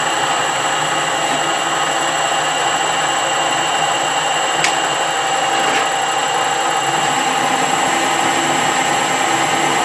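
Metal lathe running, turning a bar of hard steel: a steady machine hum with several held tones, and a couple of sharp ticks about halfway through.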